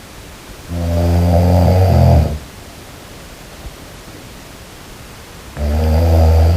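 A sleeping person snoring loudly: two long snores about five seconds apart, the second starting near the end, over a steady background hiss.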